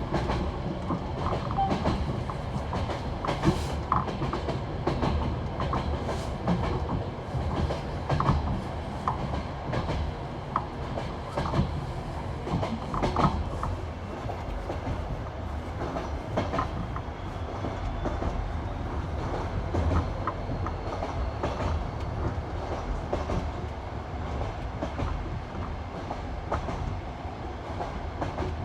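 Passenger train carriage running on jointed rail track: the classic clickety-clack of wheels striking the rail joints, repeating over a steady rolling rumble.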